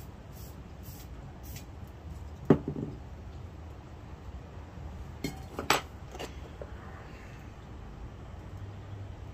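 Steel hand tools clinking and clanking as they are handled and set down: one sharp metallic clank about two and a half seconds in, then three or four quicker clinks around five to six seconds in.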